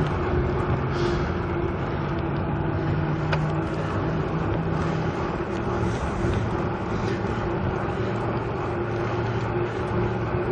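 Steady rushing noise of a moving bicycle ride, wind over the microphone and tyres on the path, with a steady low hum under it.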